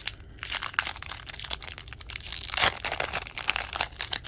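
Crinkly wrapper of a hockey-card pack crackling and tearing as the pack is handled and opened by hand, with a sharper rip about two-thirds of the way through.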